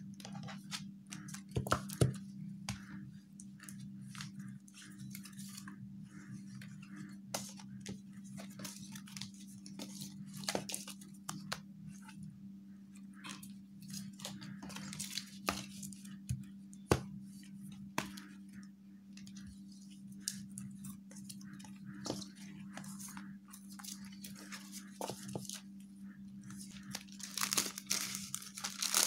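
Sheets of printed cardstock being shuffled, slid and set down on a desk: scattered rustles and sharp taps. Near the end, clear plastic film crinkles densely as it is handled. A steady low hum runs underneath.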